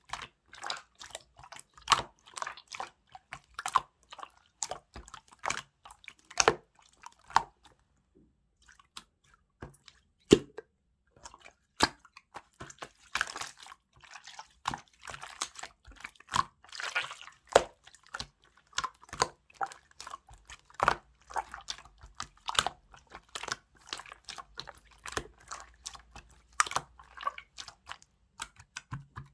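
Mixed slime being pressed, stretched and poked by hand, giving irregular sticky clicks and small squelching pops, with a short pause about eight seconds in.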